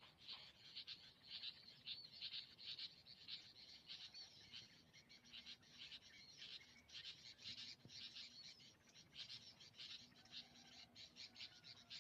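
Faint, steady chorus of rapid high-pitched pulsing calls from wild animals, with a few faint thin bird notes.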